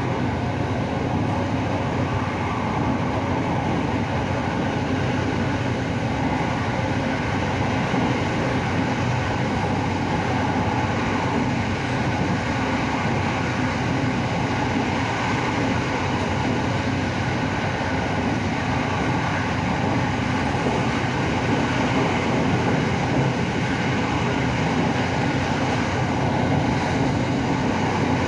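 SRT Red Line electric commuter train running at speed, heard from inside the carriage: a steady running noise with a low hum.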